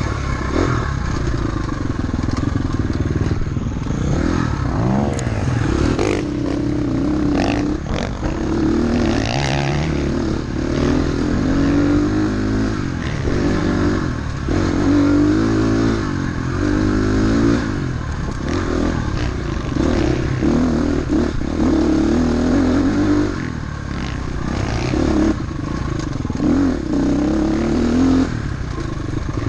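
Dirt bike engine under hard riding, revving up and falling off over and over every second or two as the rider works the throttle and gears. Loose clattering and scraping knocks come in between.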